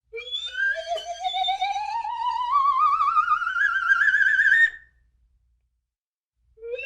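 Slide whistle sliding slowly upward in pitch with a steady warble for about four and a half seconds, then stopping. After a short silence a second rising slide begins near the end.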